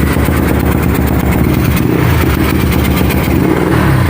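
Yamaha Mio Soul scooter's single-cylinder four-stroke engine running with a misfire. Its carburettor will not tune, which the mechanic takes for a problem inside the engine.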